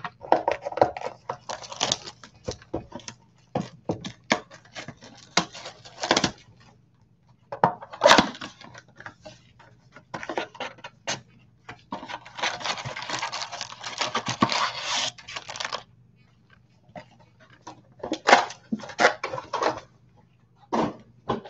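Gloved hands unwrapping and opening a 2020 Panini Mosaic football blaster box: crinkling cellophane and handled cardboard in short rustles and clicks, with a longer stretch of steady rustling from about twelve to sixteen seconds in.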